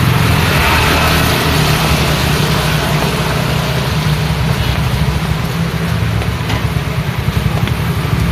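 Rain falling on a busy road with car and motorbike engines running in steady traffic, a swell of wet tyre hiss about a second in.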